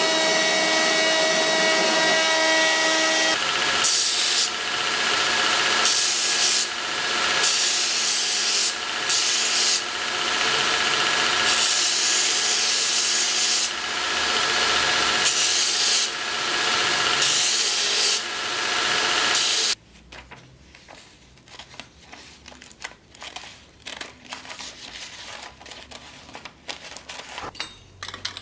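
Belt grinder running, with a small metal pommel blank pressed against the abrasive belt in repeated passes, so the grinding noise surges and eases. The motor hum is steady at first, and the grinding stops abruptly about twenty seconds in, leaving only faint scattered clicks and scrapes.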